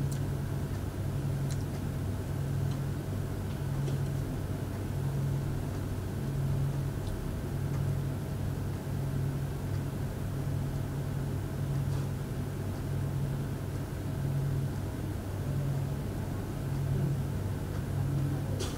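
Steady low background hum that swells and fades about once a second, over faint hiss, with no speech.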